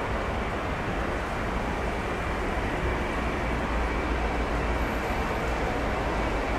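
Boeing 747-400 airliner's four Rolls-Royce RB211 jet engines at climb thrust just after take-off, a steady low rumble.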